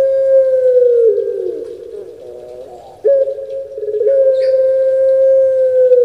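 Puter pelung, a domestic ringneck (Barbary) dove kept for its long coo, giving two long drawn-out coos. Each is a steady held note that drops in pitch and trails off; the second starts sharply about three seconds in.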